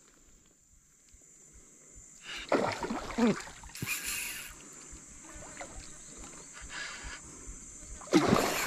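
Water splashing in irregular bursts as a hooked toman (giant snakehead) thrashes on the line, with a man's short exclamation about three seconds in.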